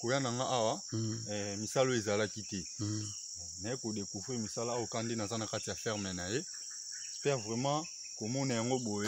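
A man talking over a steady, high-pitched chorus of insects that runs unbroken underneath.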